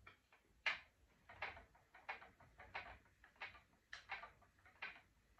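Wooden spinning wheel turning under steady treadling, a faint soft noise repeating about three times every two seconds as the flyer spins wool into yarn.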